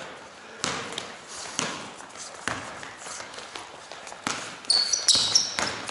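Basketball bouncing on a gym floor, about one bounce a second, with sneakers squeaking on the court near the end.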